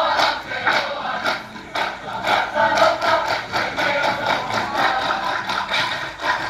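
A Samoan performing group singing and chanting together, with sharp rhythmic claps about twice a second.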